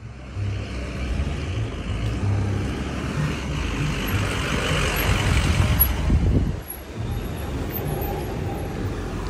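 Vehicles driving past on a road: a heavy police armoured truck's engine and tyres, loudest about five to six seconds in, followed by an SUV's engine as it comes by.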